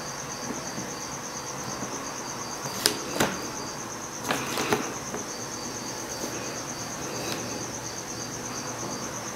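A cricket chirping steadily in a fast, even pulse, with a few light clicks about three and four and a half seconds in.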